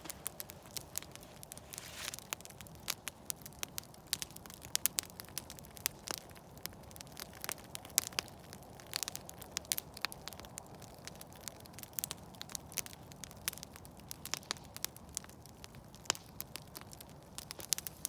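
Campfire burning, crackling and popping: many sharp, irregular snaps over a low steady hiss of the flames.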